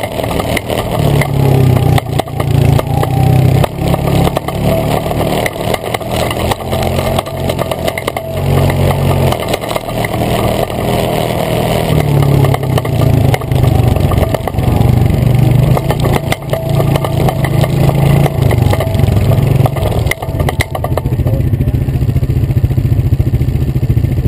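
Honda Rancher ATV engine running on the trail, rising and easing with the throttle, with a loose rear rack rattling over the bumps; near the end it settles to a steady idle.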